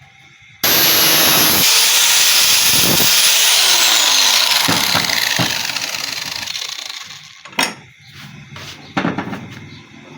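Electric power tool switched on with a sudden loud start, running hard, then its whine falls in pitch as it winds down and fades; two sharp knocks follow near the end.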